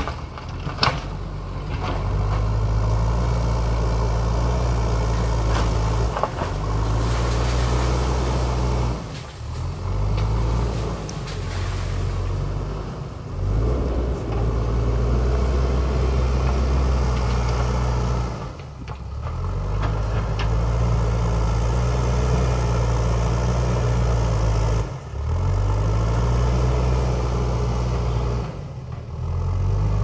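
JCB backhoe loader's diesel engine working under load as the front bucket pushes soil and rocks. Its pitch rises and falls, and the sound dips briefly about five times as the machine eases off.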